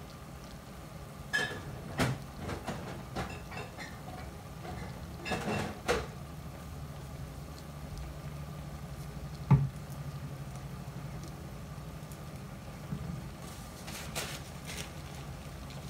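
Kitchen handling sounds: scattered clinks and knocks of utensils, cookware and a bottle being picked up and set down, the sharpest knock about nine and a half seconds in, over a steady low hum.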